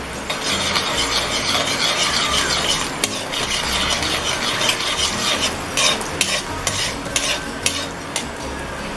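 A metal spoon stirring and scraping sweet and sour sauce around an aluminium wok, with a run of sharp ticks of spoon on pan in the second half. The sauce sizzles in the hot pan.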